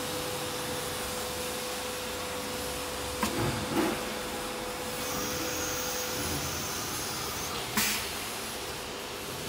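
Mingmei LCJG3-CNC-6000 aluminium-profile CNC machining center running as it machines an aluminium profile: a steady rushing noise with a steady whine that stops about six seconds in. Sharp knocks come twice a little over three seconds in and once near the end.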